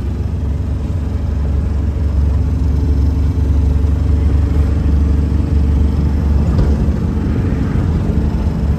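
Engine and road noise heard inside a small van's cabin while it drives along a highway: a steady low rumble with an engine hum, growing a little louder about two seconds in.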